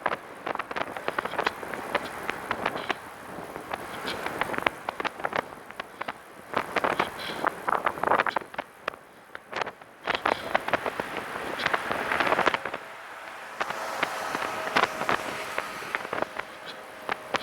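Catrike 700 recumbent trike rolling along with wind noise on the microphone and irregular, sharp rattling clicks from the rear of the trike, a random rattle whose cause is unknown. A faint steady whine joins in for a few seconds near the end.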